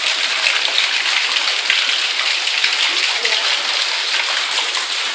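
Rooftop rainwater from a harvesting system pouring out of a pipe into an open well: a steady rush of splashing water.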